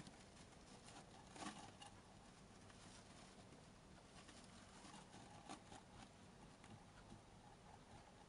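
Faint rustling and scattered light scratches of a golden hamster's feet moving over wood-shaving bedding, with one slightly louder scuff about a second and a half in.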